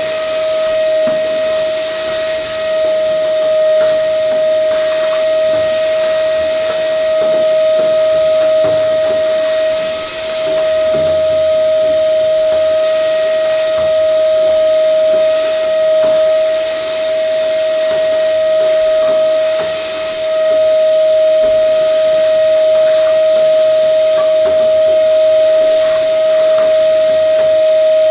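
Vacuum cleaner running with a steady high whine and rushing-air hiss as its hose nozzle sucks dust out of a battery case; the sound dips briefly a few times.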